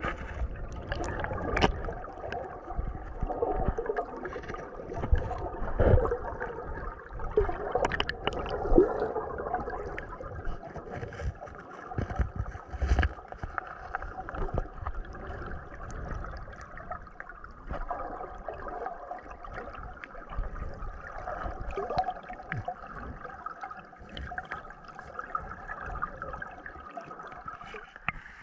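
Muffled stream water gurgling and rushing around a camera in the water during snorkelling, with irregular knocks now and then.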